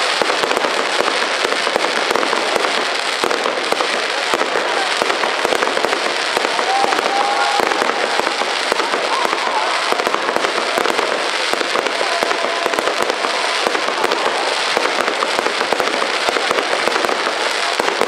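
Fireworks display: a dense, unbroken barrage of pops and crackles from aerial shells and crackling stars bursting overhead.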